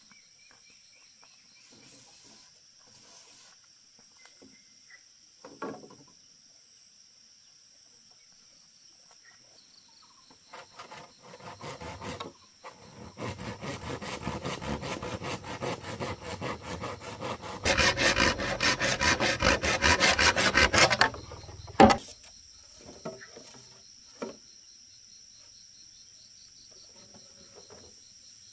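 A tool rasping against a bamboo pole in quick, evenly repeated strokes, starting about a third of the way in, getting louder past the halfway point, and stopping with a sharp knock. A steady high insect drone runs underneath.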